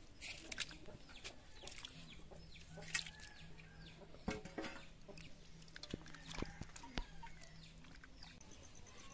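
Chickens clucking in short calls, with a few sharp knocks in between.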